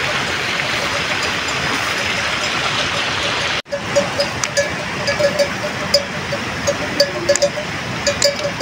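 Steady rush of stream water for about three and a half seconds, then after a sudden cut, bells on grazing water buffalo clanking irregularly.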